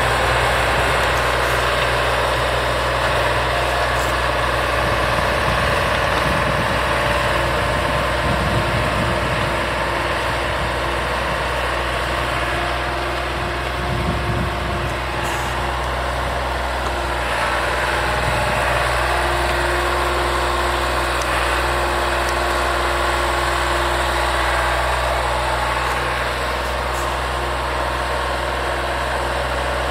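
MS65 cab tractor's engine running steadily as it pulls a rotary tiller through the soil.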